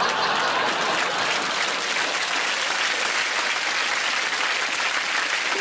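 Studio audience applauding, a dense, steady clapping that eases off slightly near the end.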